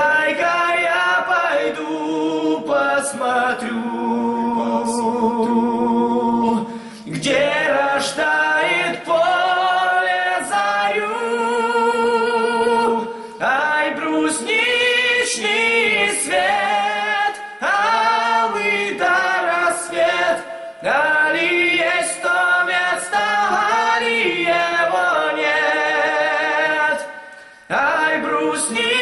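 Two young men's voices singing together unaccompanied, a cappella. Long phrases with wavering held notes, broken by short breaths between phrases.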